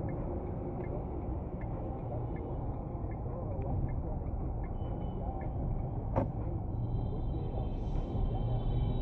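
Car cabin road and engine rumble as heard by a dashcam while the car turns, with faint regular ticking about once every three-quarters of a second, typical of a turn-signal relay. A sharp click comes about six seconds in, and a high held tone near the end.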